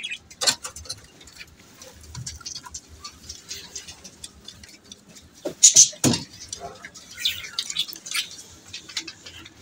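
Handling of a wooden-framed wire-mesh bird cage: scattered clicks, knocks and rattles as its door and frame are moved, with the loudest clatter about six seconds in.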